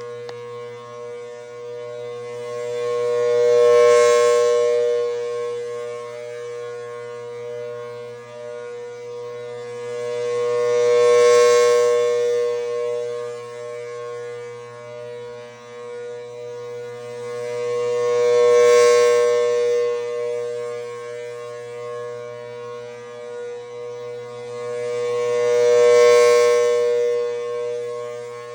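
Federal Signal Thunderbolt 1000T tornado siren with a 4/5-port chopper, sounding its test as a steady two-tone chord without any wail. The horn turns on an 8 RPM rotator, so the sound swells and fades about every seven seconds, four times in all.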